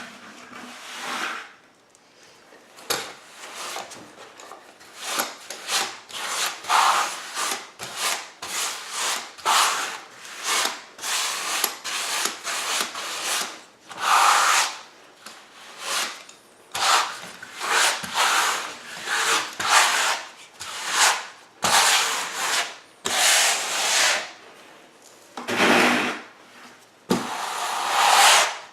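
A trowel scraping and spreading thin-set mortar in repeated quick strokes, about one or two a second, with a few louder strokes along the way.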